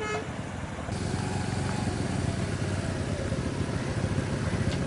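Road traffic: vehicle engines running steadily, with the tail of a vehicle horn at the very start.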